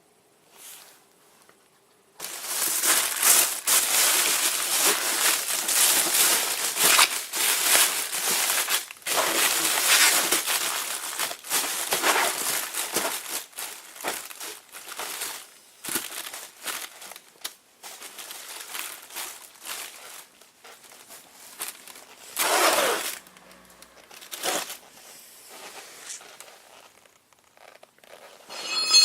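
Crinkling and rustling of a sheet or bag being crumpled and handled. It runs loud and continuous for about twelve seconds, then comes in scattered bursts. A single sharp click with a brief ring comes at the very end.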